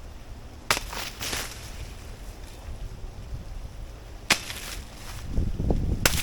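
A blade chopping into the soft stem of a banana plant: three sharp chops, the first about a second in, the next a few seconds later and the last near the end, over a low rumble of wind on the microphone.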